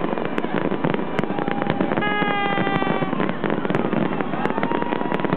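Fireworks crackling and popping in a dense, rapid stream. A steady horn-like tone sounds for about a second, about two seconds in, and another begins near the end.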